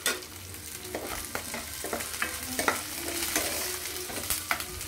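Sweet corn, peanuts and just-added curry leaves sizzling in hot ghee and oil in a nonstick kadai. A steel spoon stirs them and clicks and scrapes against the pan again and again.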